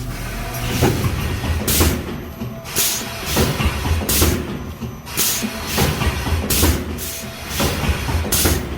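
A 12-lane automatic honey-stick sachet packaging machine running and cycling, with a low mechanical rumble and a short burst of hiss about once a second.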